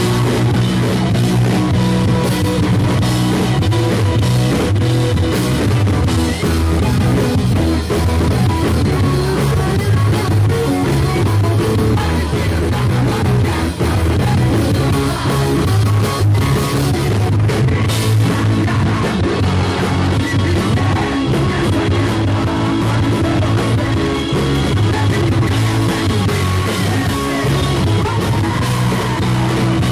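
A live rock band playing at full volume: electric guitars, bass guitar and drum kit, with a singing voice.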